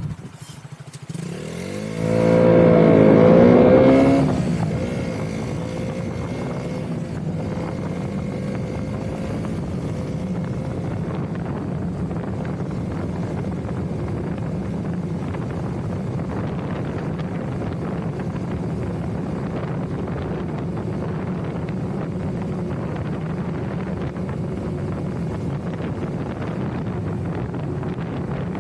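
Motorcycle engine revving up as the bike accelerates, loudest about two to four seconds in, then settling into a steady cruising drone.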